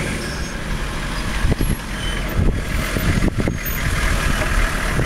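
Military Humvees' diesel engines running as the trucks drive up and pull alongside. The engine sound is steady, with a few short knocks around the middle.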